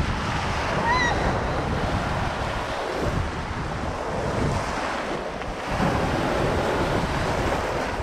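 Small Mediterranean surf waves breaking and washing through shallow water right around the microphone, rising and falling with each wave, with wind rumbling on the microphone. A short, high, wavering cry sounds about a second in.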